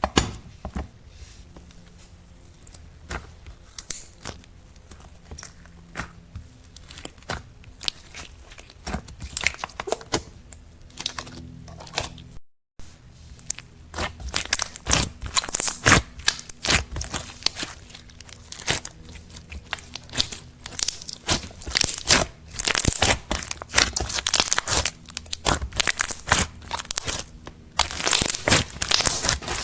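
Slime being squished, stretched and kneaded by hand, making dense crackling clicks and pops. The sound briefly drops out partway through, then comes back louder and busier.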